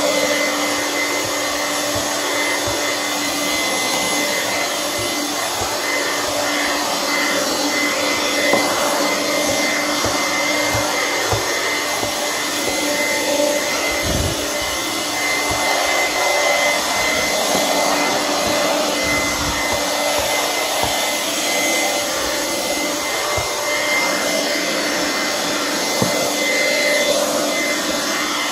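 Hoover vacuum cleaner running steadily: an even motor and airflow noise with a constant high whine, and a few brief low bumps partway through.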